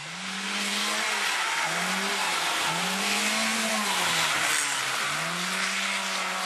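Rally car driving hard past on a wet stage, its engine note climbing and dropping back about four times as it is revved and lifted off. Steady hiss of tyres and road spray sounds over the engine.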